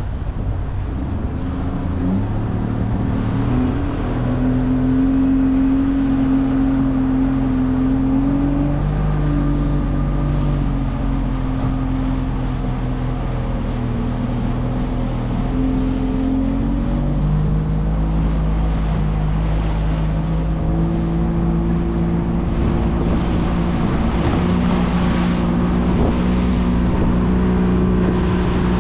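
Fishing boat's engine running steadily, its pitch shifting up and down a few times as the throttle changes.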